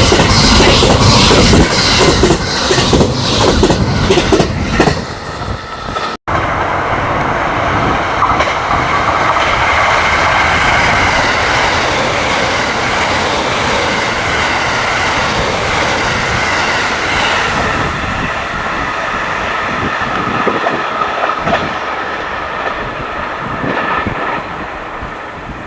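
JR West 681-series limited express train passing at high speed, its wheels clicking rapidly over rail joints. After a momentary break about six seconds in, a steady rushing rumble with a faint whine carries on and slowly fades.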